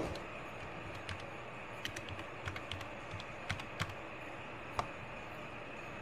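Keys on a computer keyboard being typed: about a dozen light, irregularly spaced clicks over a faint steady hiss.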